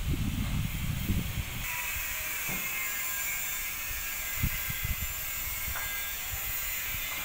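Wind buffeting the microphone at first, then a steady high hiss that starts suddenly about a second and a half in, with a few soft knocks.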